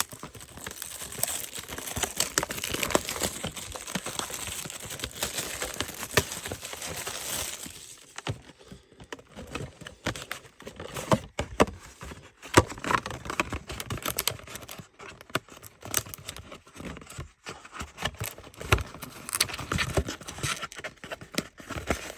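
Plastic wrapping crinkling and tearing as a sealed display box of Pokémon card mini tins is unwrapped, followed by irregular clicks and knocks of the box and small tins being handled.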